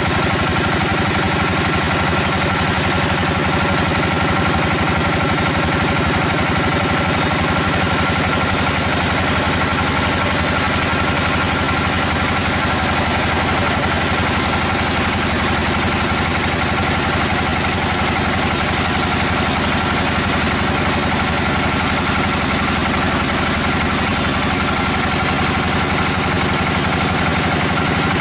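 An engine running steadily at an even speed, with a fast, regular firing beat and no change in pitch or level.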